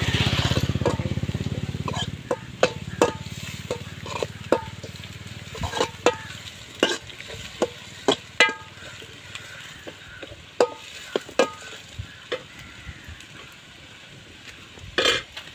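Steel spoon clinking and scraping irregularly against an aluminium pan while sliced shallots and dried red chillies are stirred and fried, with a light sizzle underneath. A low hum fades out in the first two seconds, and there is a louder scrape near the end.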